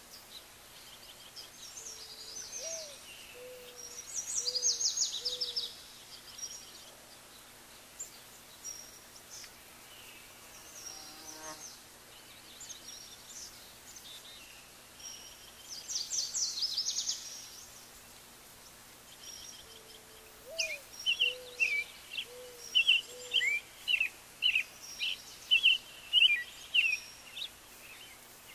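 Birdsong: bursts of rapid high trills and a few low whistled notes. The same passage comes round twice. In the last seven seconds there is a run of loud, short chirps, about two a second.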